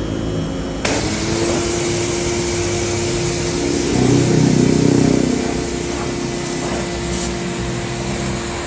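Pressure washer jetting water onto a car's AC condenser fins. The spray hiss and the washer's steady motor hum come on abruptly about a second in, and grow louder for a moment around the middle.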